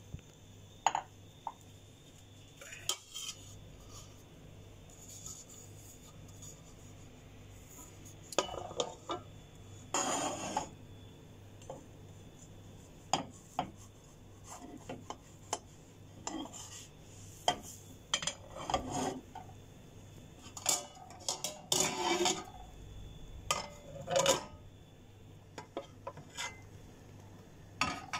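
Spatula scraping and knocking against a speckled stone-coated nonstick frying pan as a soufflé pancake is loosened and turned over: scattered clicks with longer scrapes about ten seconds in and again from about eighteen to twenty-four seconds.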